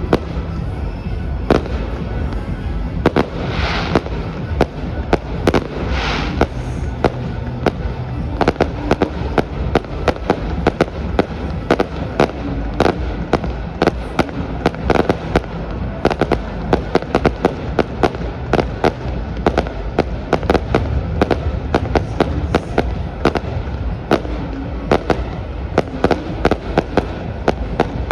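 Fireworks going off in rapid, irregular succession: dozens of sharp bangs, with two hissing bursts about four and six seconds in. Loud music runs underneath.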